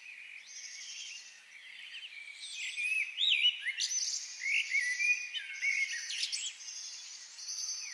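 Several songbirds singing in a forest, with overlapping whistled and warbled phrases that grow busiest in the middle. A high buzzing call comes in repeated short spells throughout.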